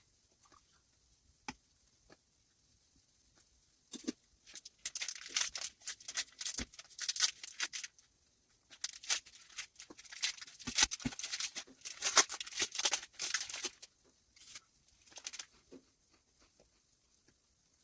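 Crinkling, tearing handling noise in three bursts of a few seconds each, with a few sharp clicks between them.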